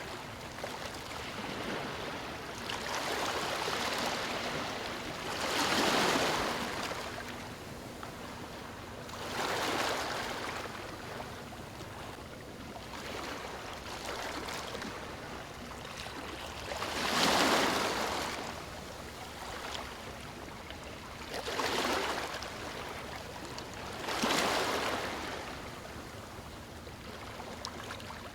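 Waves breaking and washing over stones on a shore. The surges of surf rise and fall at irregular intervals of a few seconds over a continuous wash, and the loudest comes about two-thirds of the way through.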